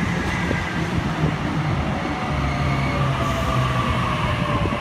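Sydney Trains Waratah double-deck electric train pulling into the platform close by, slowing: a steady rumble of wheels and running gear with a faint whine that falls slowly in pitch.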